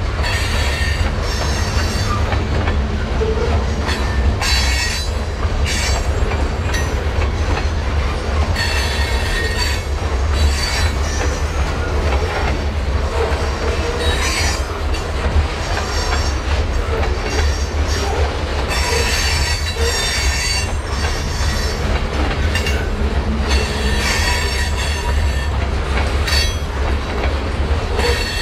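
Cascade and Columbia River Railroad freight train rolling by, its steel wheels squealing in repeated short spells over a steady low rumble.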